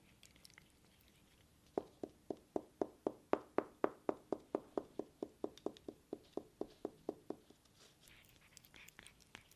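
A run of about two dozen evenly spaced taps, about four a second, growing louder and then fading, followed near the end by faint scattered crackly clicks.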